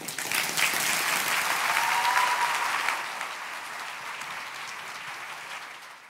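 Audience applauding, loudest in the first few seconds, then settling lower and fading out at the end.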